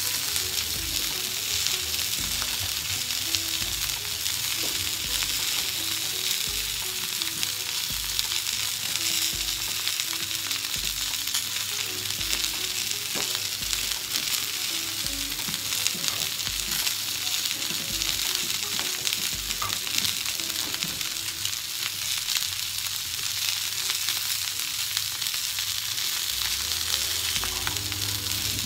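Salmon fillets and sliced potatoes sizzling steadily in oil in a ribbed grill pan, with occasional light clicks and scrapes of a fork and spatula turning the potatoes in the second half.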